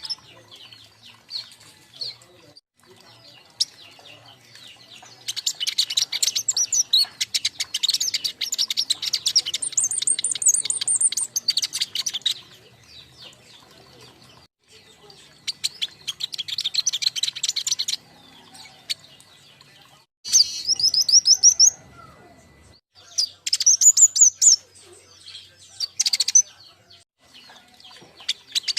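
Several young king konin songbirds chirping and trilling in rapid bursts of high notes, each burst lasting a few seconds, with quieter stretches between.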